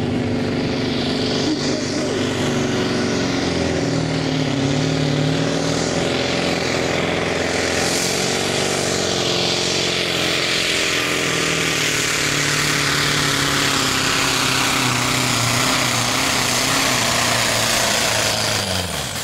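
Scania 142 pulling truck's diesel engine running at full throttle under heavy load as it drags a truck-pulling sled, a loud, steady engine note whose pitch holds fairly even.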